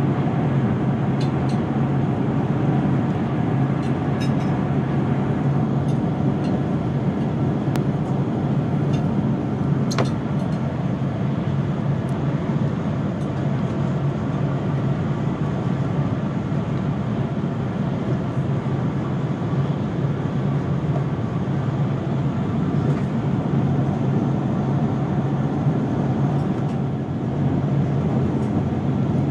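Steady rumble and low hum of a Eurostar high-speed train running at speed, heard from inside the passenger coach, with a few faint clicks.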